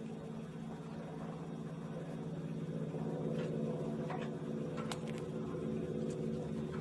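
Steady low machine hum with a fast, regular pulsing in it, and a few short, sharp clicks in the second half.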